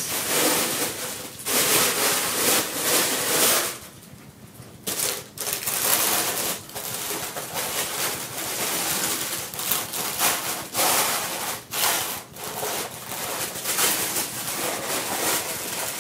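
Styrofoam packing being pulled apart and rubbed as statue parts are lifted out, a loud irregular rustling and scraping with a short lull about four seconds in.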